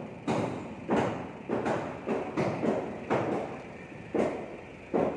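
Repeated sharp knocks, irregular at roughly two a second, each ringing briefly in the steel shipping container: workers knocking loose the wooden chocks that block the forklift's wheels.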